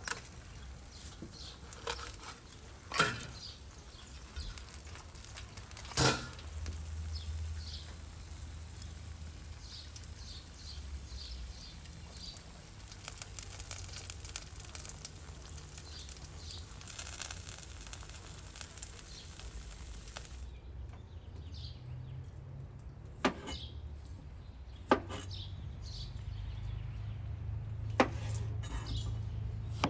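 A knife cutting into a spit-roasted fish beside glowing charcoal, with light crackling from the embers and a couple of sharp knocks. About two-thirds of the way in this gives way to a knife chopping cucumber on a plastic cutting board: a few separate sharp knocks a second or more apart.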